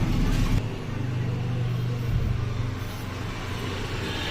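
Low rumble of a motor vehicle, loudest in the first half-second, then settling into a steady low hum that fades a little after about three seconds.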